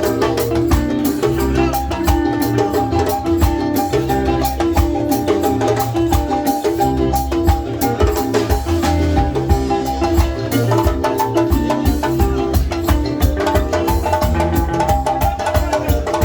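Band music with a steady, quick percussion beat and a bright repeating melody line.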